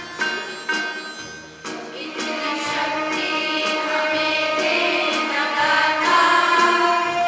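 A prayer song: plucked-string notes over a steady low beat, then a group of young voices starts singing together about a second and a half in, with the strings and beat continuing underneath.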